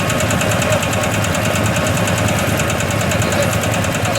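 Diesel engine of a 1969 Iseki KD900 walk-behind hand tractor running steadily, with a rapid, even beat.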